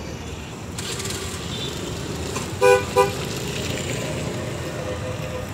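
Two quick vehicle horn toots a little past halfway, over steady street traffic noise.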